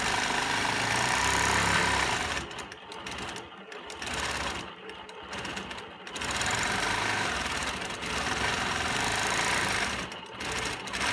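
Longarm quilting machine stitching. It runs steadily, then eases off twice, around three and five seconds in, and briefly again near the end, as the needle is guided around a swirl.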